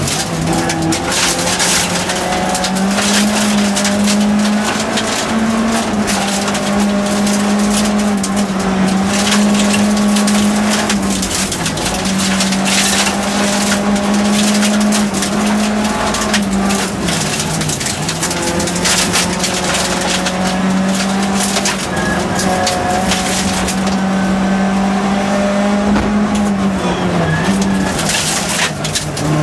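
Nissan Primera Group F rally car heard from inside the cabin, its engine held at high revs on a gravel special stage, the note dipping briefly a few times. Stones and gravel clatter constantly against the car's underside.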